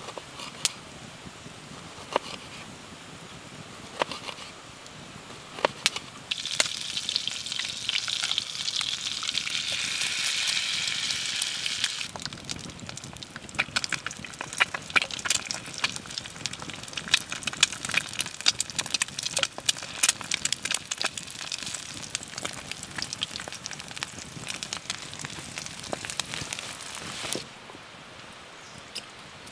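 Eggs and slices of salami frying in a pan over a wood campfire: a steady sizzle starting about six seconds in, giving way after a few seconds to busy crackling and popping. Before it, a few knife knocks on a wooden cutting board; the crackle stops near the end.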